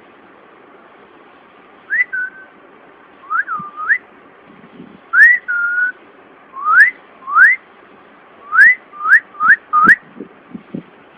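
Pet parrot whistling: a run of about nine short upward-sliding whistles, two of them ending in a brief held note, coming quicker near the end, followed by a few soft taps.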